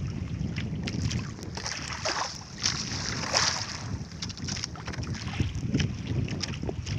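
Wind buffeting the microphone on a small boat at sea, with choppy water splashing and sloshing against the hull in uneven surges.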